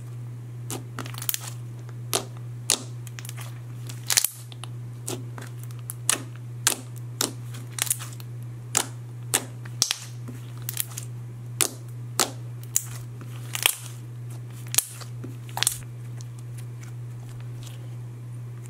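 Thick slime being squished and pressed by hand, giving sharp bubble pops and clicks at irregular intervals, about one or two a second. A steady low hum runs underneath.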